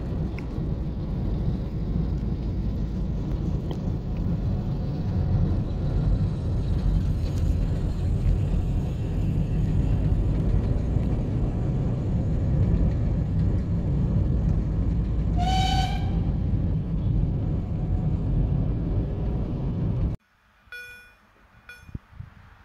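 Steady low rumble heard from a moving car running alongside Ty2 steam locomotive Ty2-911. About three-quarters of the way through, one short, high whistle sounds. Near the end the sound cuts off suddenly to a much quieter scene with a few brief high tones.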